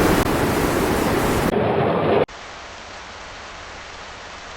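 Loud, steady rush of water from flood footage. A little over two seconds in it cuts abruptly to a much fainter rush of water.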